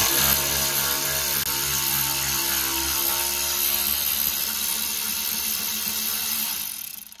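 Cordless electric ratchet driving a T60 Torx socket to undo a rear brake caliper bracket bolt. Its motor and gearing run steadily and loudly, then stop near the end.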